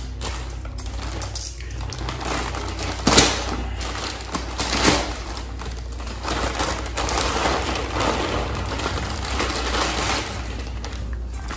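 Plastic parts bag crinkling and rustling as it is handled and torn open, with scattered clicks and two sharper snaps about three and five seconds in.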